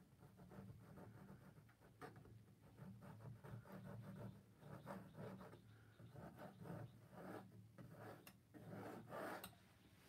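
Faint scraping of a palette knife dragged over wet acrylic paint on a stretched canvas, in many short, irregular strokes.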